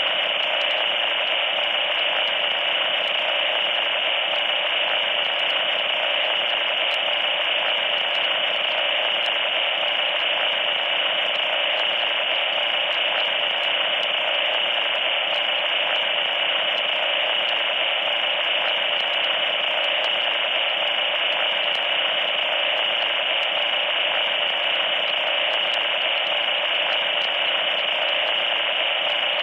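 Loud, steady static noise, a harsh hiss like a radio tuned between stations, with a shrill edge high in its range.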